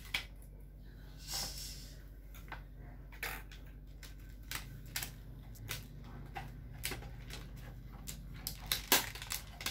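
Scattered clicks and light knocks of hard plastic toy kitchen parts and small toy pieces being handled and fitted together, with a brief rustle about a second in and the sharpest clicks near the end.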